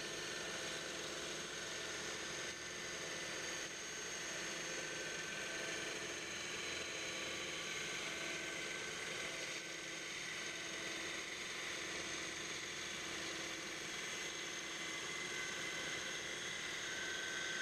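Grizzly G0513 bandsaw with a 1-inch carbide resaw blade running and slowly cutting a hard hickory board lengthwise, a steady machine sound with a few steady tones over it.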